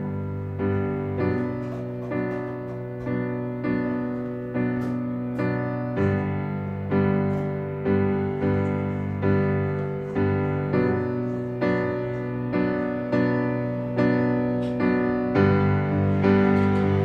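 Background music: a gentle piano track, its notes struck at an even pace of about two a second, each one fading out.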